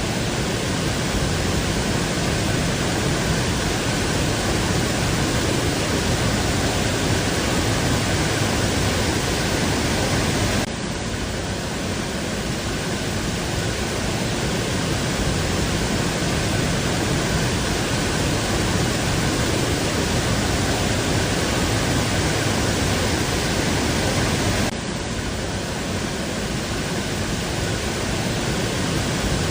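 Waterfall close to the microphone: a loud, steady rush of falling water with no let-up, stepping down abruptly in level about eleven seconds in and again near the end.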